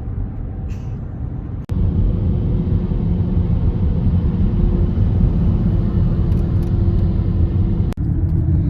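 Steady low rumble like a vehicle in motion, broken by two sudden brief dropouts.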